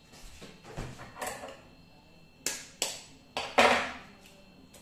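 An egg being knocked against a bowl and broken open by hand: a few sharp cracks about two and a half seconds in, the loudest a little after three and a half seconds.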